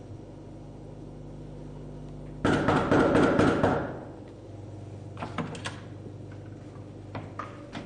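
Knuckles knocking rapidly on a wooden flat door: one hard run of knocks lasting about a second and a half, a couple of seconds in. A few fainter clicks and taps follow.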